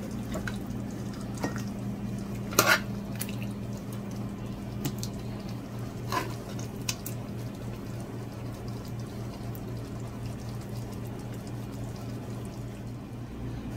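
A spoon scooping thick oxtail stew out of a metal pot and onto a plate: wet slopping of gravy with a few light clinks of spoon on pot and plate, the sharpest about three seconds in, over a steady low hum.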